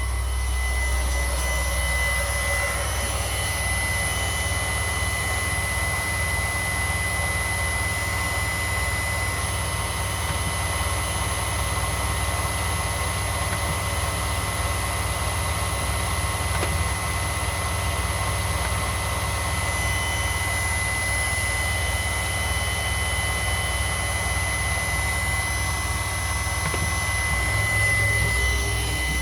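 Homemade CNC milling machine running: a steady motor whine with a constant high tone over a low hum and hiss.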